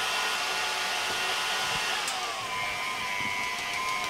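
Stand mixer motor running, its wire whisk beating egg whites into meringue in a steel bowl. A steady whine whose pitch drops about two seconds in and then holds lower.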